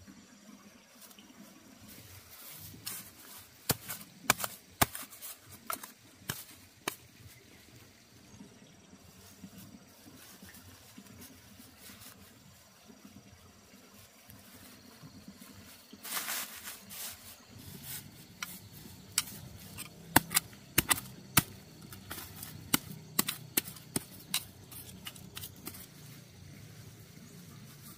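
Dry rice straw mulch crackling and rustling as hands part it and press soil around a transplanted seedling. The sharp crackles come in two clusters, a few seconds in and again through the second half, with a quieter stretch between.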